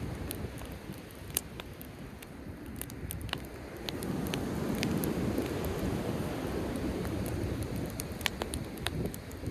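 Driftwood bonfire crackling, with scattered sharp pops, over a low steady rushing of waves on the shore.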